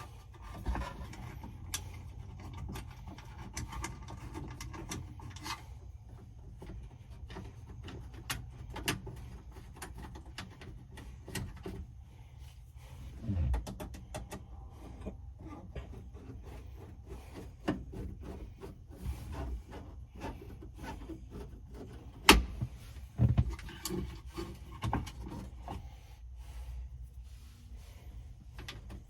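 Screws being driven back into a plastic dash cover around a truck's heater/AC control panel: scattered clicks, scrapes and rubbing of the screwdriver and plastic, with a sharp knock about two-thirds of the way through, over a steady low rumble.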